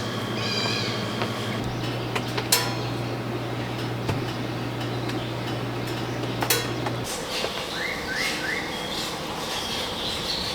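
Birds calling in short rising chirps, with a couple of sharp knocks and a steady low hum that stops about seven seconds in.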